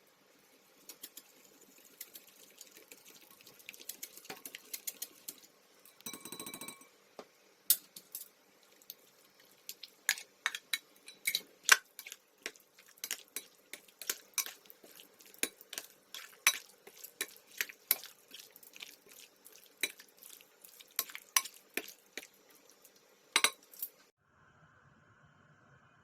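Kitchen utensils clinking against dishes: soft scraping with small clicks at first, a short grating rasp about six seconds in, then many sharp clinks that cut off suddenly near the end.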